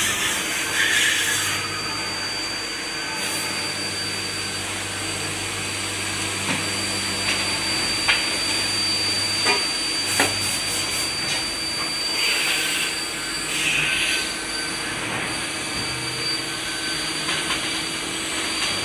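CNC machine running: a steady high whine over a constant low hum, with a few sharp clicks near the middle and short bursts of hiss a little later.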